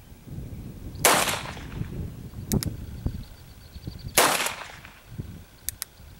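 Two shots from a Colt New Pocket revolver in .32 Long Colt, about three seconds apart, each with a short echoing tail. Fainter sharp clicks come between and after the shots.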